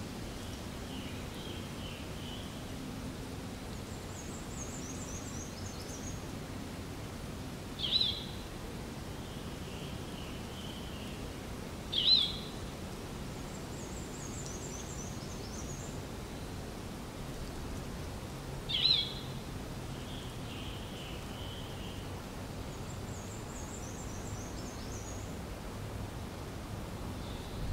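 Birds calling over steady outdoor background noise: three loud, short, sharp calls several seconds apart, each dipping in pitch, and a quieter high trill that repeats every nine or ten seconds.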